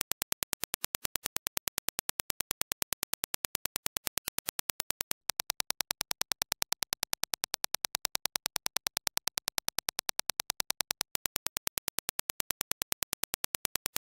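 A rapid, evenly spaced train of Dirac impulse test clicks. It starts with the reference impulse. After a short break about five seconds in, the clicks come as reproduced by the Focal Bathys headphones on a measurement dummy head, a little louder and brighter. After another short break about eleven seconds in, the reference clicks return.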